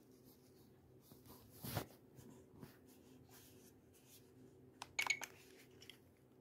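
Faint handling noise of a compact camcorder being turned over in the hand: a soft knock about two seconds in and a few light plastic clicks about five seconds in, over a faint steady hum.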